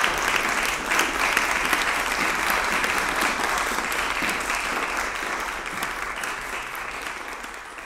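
Audience applauding, a dense patter of clapping that slowly fades away toward the end.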